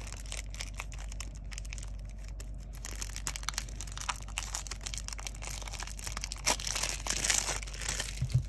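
Cellophane shrink-wrap being picked at, torn and crumpled off a tarot card box: a run of sharp crackling that grows busier and louder about a third of the way in.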